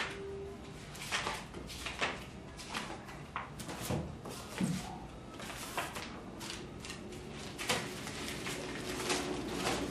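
Glossy magazine pages being turned and handled: short paper rustles and flicks, irregular, a couple a second.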